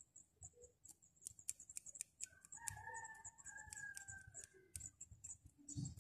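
A rooster crowing faintly: one long call starting about two and a half seconds in and falling away at its end, with light clicks alongside.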